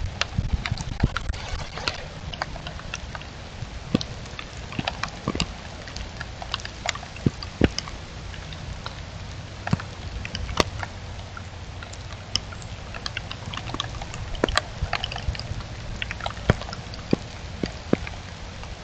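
Hailstones striking hard surfaces in irregular sharp knocks, several a second, over the steady noise of rain and a low wind rumble on the microphone.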